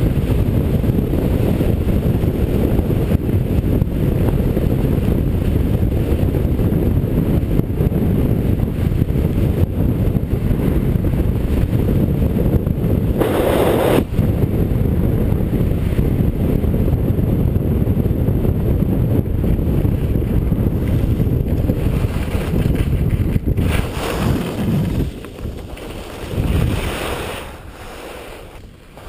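Heavy wind noise buffeting a helmet-mounted camera's microphone on a fast ski run, mixed with the rush of skis over snow. A brief louder surge comes about halfway through, and the noise dies away in the last few seconds as the skier slows to a stop.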